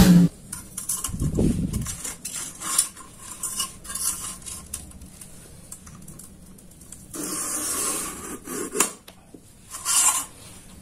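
A steel ruler clanking and rattling against a thin steel plate as it is positioned, with small metallic clicks. About seven seconds in, a longer scrape as a metal point is drawn along the ruler, scratching a line into the plate.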